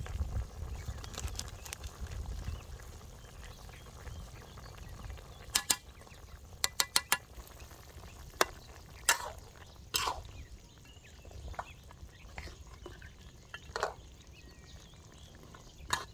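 Metal spoon and spatula clinking and scraping against a steel wok while pork ribs are stirred in their cooking liquid: scattered single clinks, with a quick run of four or five about a third of the way in.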